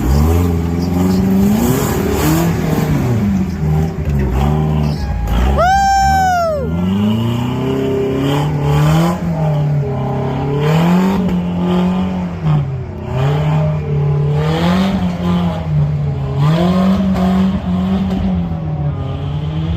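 An engine running with its pitch swelling and dropping every second or two, as if repeatedly taking and easing off load. About six seconds in, a brief high tone rises and falls.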